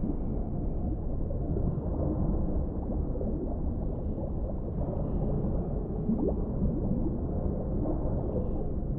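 Underwater ambience: a steady deep, muffled rumble of water with a few short rising gurgles of bubbles about four, six and seven seconds in.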